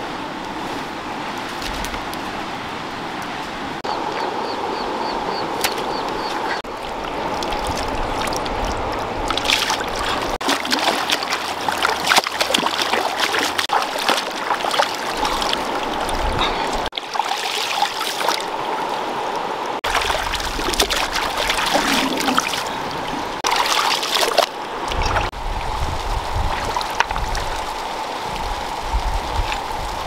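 River water running steadily over stones, with repeated bouts of sloshing and splashing as pieces of animal tripe are dipped and swished in the current to wash them.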